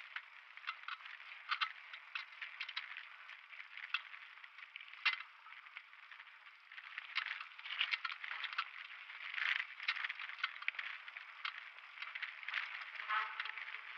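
Downhill mountain bike rattling over a rough dirt trail: a constant clatter from the bike and its knobby tyres on the ground, with many sharp clicks and knocks from bumps.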